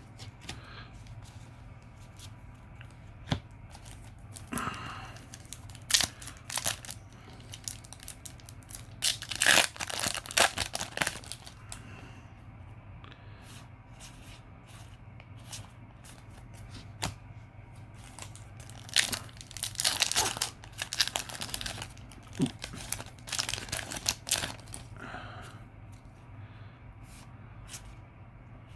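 Foil booster-pack wrappers being torn open and crinkled, in a flurry about ten seconds in and another from about nineteen to twenty-four seconds, with scattered light clicks and rustles between.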